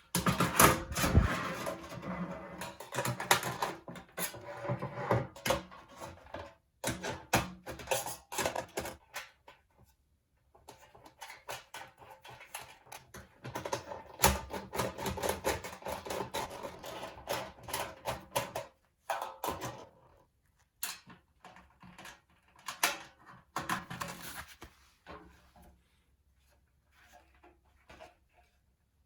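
Thin stainless steel sheet being worked by hand: dense, irregular metallic clicking, crunching and scraping in bursts of several seconds with short pauses, thinning out near the end.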